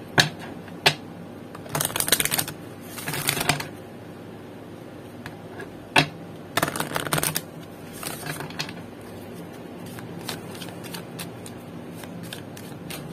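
A deck of oracle cards being shuffled by hand: a few sharp taps and four short bursts of cards sliding against each other, two within the first four seconds and two around seven to eight seconds in, then lighter scattered ticks.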